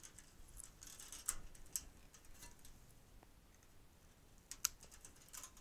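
Hand wire strippers snipping through thin ballast lead wires: a few light, sharp clicks, two about a second in and a quick pair near the end.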